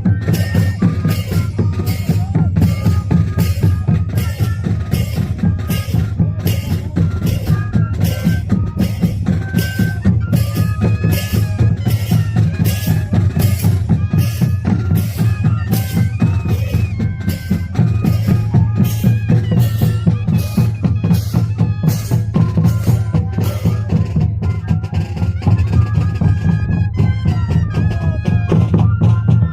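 Moseñada band playing: a troupe of moseño cane flutes carries the melody over a steady low drone and an even drum beat of about two strokes a second.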